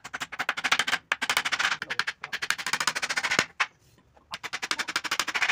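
Hammer driving nails into the boards of a wooden frame: a fast run of sharp taps that breaks off about three and a half seconds in, then starts again.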